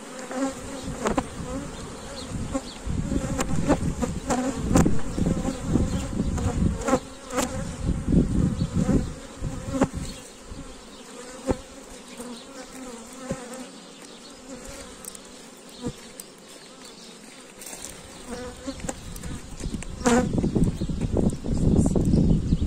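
Steady buzzing of a mass of honey bees from an open hive, with scattered sharp knocks and clicks and bursts of low rumble, heaviest in the first ten seconds and again near the end.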